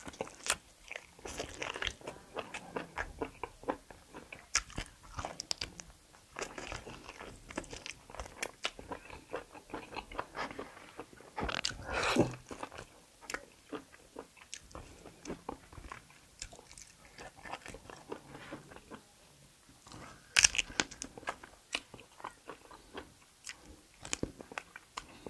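Close-up eating sounds of a person biting and chewing kalij pheasant meat from a curry: many short wet mouth clicks, with louder bites about 12 and 20 seconds in.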